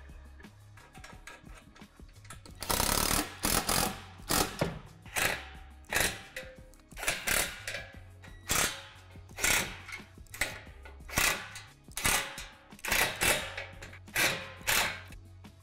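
Cordless drill/driver run in short bursts, about one to two a second, starting about three seconds in, driving the hardware on a metal shed truss; soft background music underneath.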